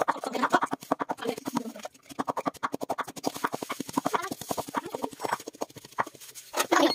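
A fast, even clicking rhythm with short clucking, animal-like calls over it, laid on as a novelty backing track.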